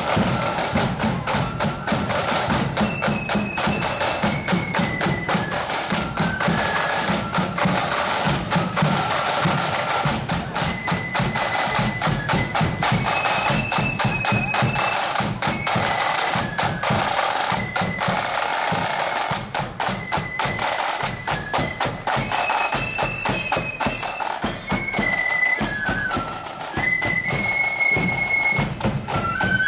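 Marching flute band playing: side drums beat a quick march rhythm, and the flutes come in with a stepping melody about three seconds in and carry it above the drumming.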